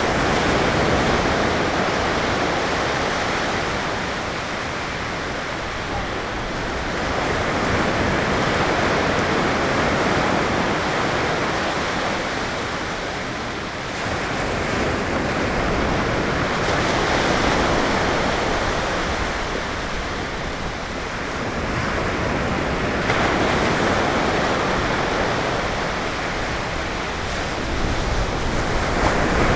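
Ocean surf: waves breaking and washing up the beach as a steady hiss that swells and ebbs, a new wave surging roughly every six to seven seconds.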